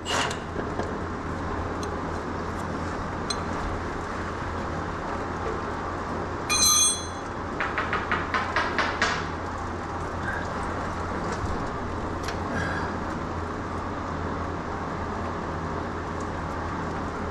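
A cordless impact wrench: about six seconds in it gives a short high whine, then a quick string of rattling bursts lasting about a second and a half. A steady low hum runs underneath.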